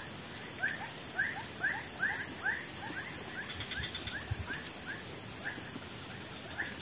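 A dog whining: a run of short rising whines, two or three a second, thinning out toward the end.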